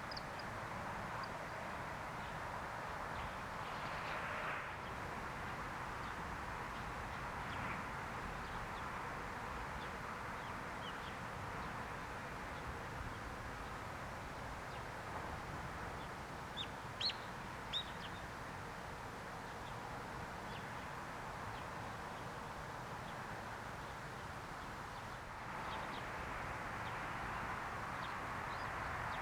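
Steady outdoor background hiss with a few short, thin, high bird calls, three close together about two-thirds of the way through.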